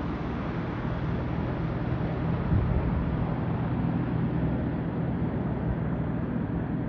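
Boeing AH-64E Apache Guardian helicopter in flight, its four-blade main rotor and twin turboshaft engines giving a steady low hum. The sound grows duller as the helicopter flies away, with a brief louder swell about two and a half seconds in.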